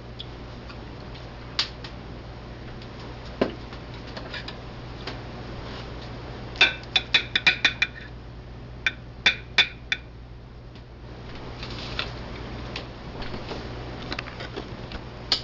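Paprika shaker shaken and tapped over a plate of food: a quick run of about seven sharp clicks in the middle, four more a second later, and a few single light clinks.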